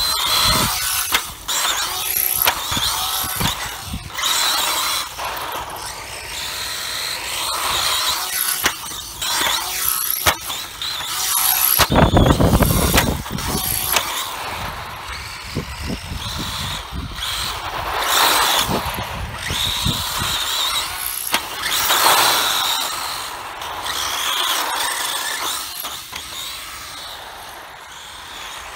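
Kyosho DBX VE 1/10 four-wheel-drive buggy running on asphalt, its brushless motor whining up and down as it accelerates and slows, with tyres scrabbling and squealing. There is a brief loud low rumble about twelve seconds in.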